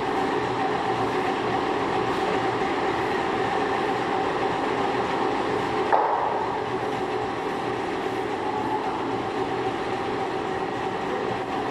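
Metalworking machine running steadily during the machining of a screw conveyor, with a steady hum and a single sharp click about six seconds in.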